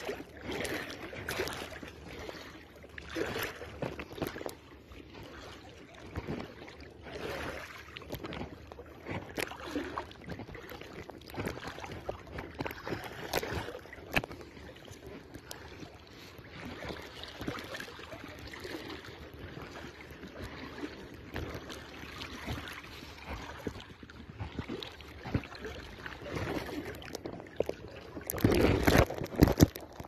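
Shallow seawater sloshing and swishing in irregular surges as someone wades through it, with a louder rush near the end.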